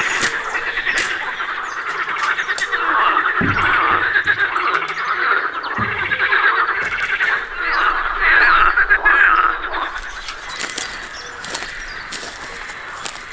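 A dense chorus of frogs croaking, many fast pulsing calls overlapping, with a couple of dull low thumps partway through.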